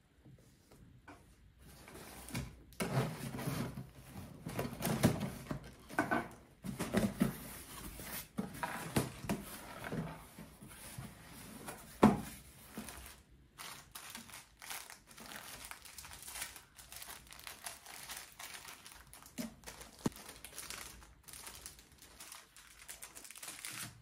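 A sealed cardboard shipping box being opened and unpacked by hand: flaps pulled back, with rustling, crinkling and light knocks of cardboard and packing paper. The handling is busiest in the first half, with one sharp knock about halfway through, then lighter rustling as items are lifted out.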